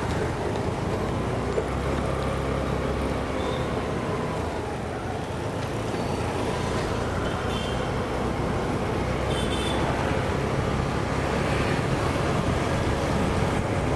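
Honda Dio scooter being ridden through city traffic: its engine running steadily under wind noise and the surrounding road traffic.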